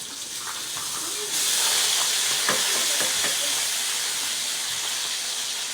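Bacon sizzling in a frying pan, a steady hiss that turns suddenly louder about a second and a half in, with a few faint knocks.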